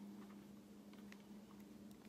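Near silence: room tone with a faint steady hum and a few faint ticks.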